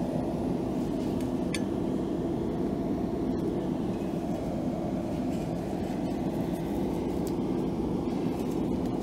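Steady machinery hum and rumble of a workshop, with a light click about one and a half seconds in.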